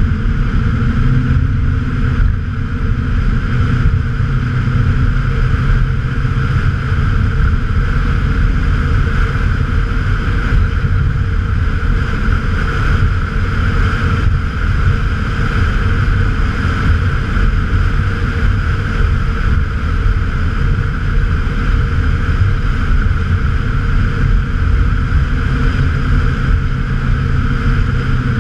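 Ford 5.0 L (302) V8 of a 1995 F-150 pickup running steadily at cruise, its exhaust note loud and even with no revving.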